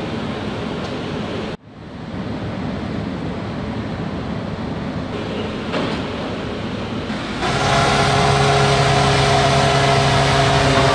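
Steady wind and engine noise on the open deck of the passenger ferry Ferry Yakushima 2 under way, cut off by a brief break about a second and a half in. From about seven seconds in a louder, steady drone with several held tones takes over.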